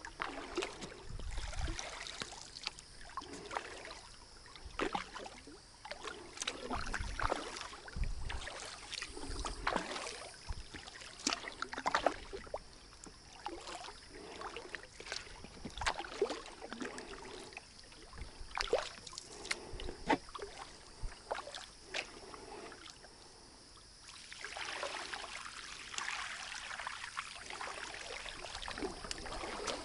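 Kayak paddling: the blades of a double-bladed paddle dipping and pulling through river water, with irregular splashes and drips and the light knocks of the paddle against the inflatable kayak.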